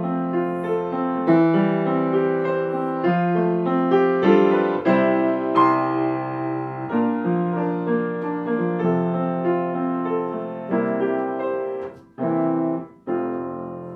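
Solo piano playing a melody over chords. Near the end the playing stops briefly, then two closing chords ring out.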